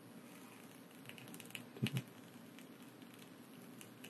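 Faint, irregular crackling of rosin flux spitting as a soldering iron heats lead-free solder on a perfboard pad. Two short dull knocks come a little under two seconds in.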